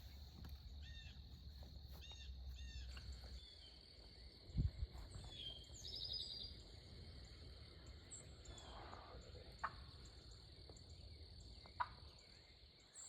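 Faint woodland ambience: a bird calling in a quick series of chirps in the first few seconds over a steady high tone, with a single low thump about four and a half seconds in and a couple of light clicks later.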